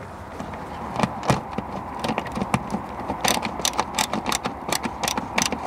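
Ratcheting driver with a 10 mm socket clicking in quick, irregular runs as it tightens a screw into a soft trunk lining mat.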